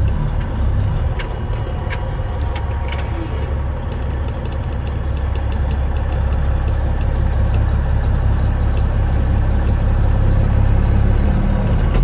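Heavy truck's diesel engine, heard from inside the cab, pulling the loaded grain truck slowly out of a soft field; a steady low rumble that grows somewhat louder in the second half, with a couple of light clicks or rattles early.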